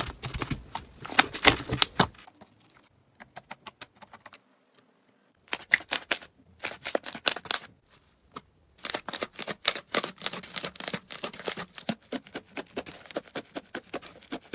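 Slime being worked, making fast runs of sharp clicks and pops. The clicking thins to a few scattered pops about two seconds in, picks up again a few seconds later and is densest near the end.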